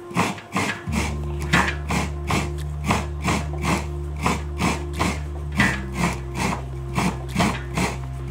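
Half a fresh coconut being grated against the serrated metal blade of a stool-mounted coconut scraper, a rasping stroke about three times a second. A steady low music drone comes in under it about a second in.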